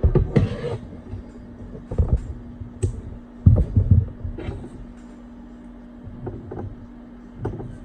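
Handling noises of double-sided adhesive tape being laid around an iPad mini's screen edge: a short rustling tear about half a second in, then scattered light taps and knocks, loudest a few seconds in.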